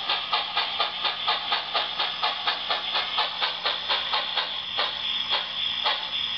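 Soundtraxx heavy-steam sound decoder in an HO-scale Bachmann 2-8-0 steam locomotive model, playing steam exhaust chuffs through a small speaker. The chuffs come about four a second and slow to about two a second near the end.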